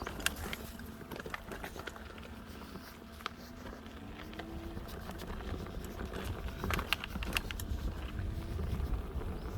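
Mountain bike on a rocky trail: scattered clicks and clatter of the bike and stones over a low wind rumble, with a burst of sharper clacks about seven seconds in.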